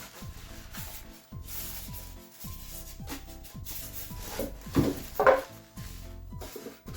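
Packaging being handled as a box is unpacked: rubbing and scraping, loudest twice around the middle, over background music with a repeating bass pattern.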